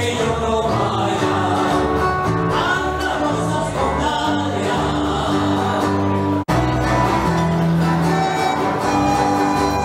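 Folk music with singing and instruments, with a steady beat. It breaks off for an instant about six and a half seconds in, then carries on.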